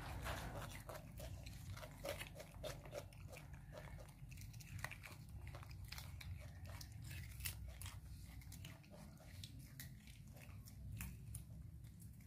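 Baby monkeys biting and chewing raw cucumber slices: soft, irregular crunches.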